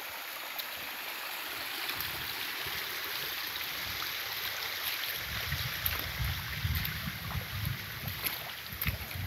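Shallow, muddy runoff water running over the ground as it spills out of a farm dam after heavy rain: a steady rush of flowing water. Irregular low thumps join in from about two seconds in and are strongest in the second half.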